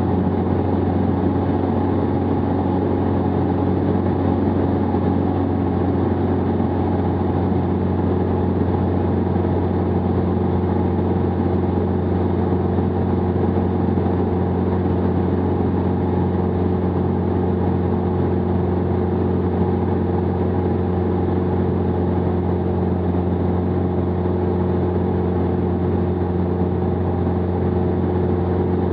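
Jabiru 2.2-litre four-cylinder air-cooled engine and propeller of a Jabiru SP500 light aircraft running steadily in flight, a constant drone at unchanging pitch heard from inside the cockpit.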